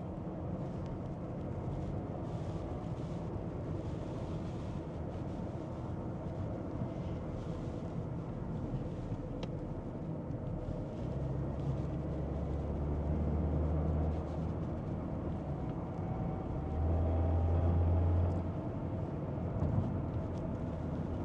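Car driving along, a steady low road and engine rumble that grows louder twice, once around the middle and again for about a second and a half near the end.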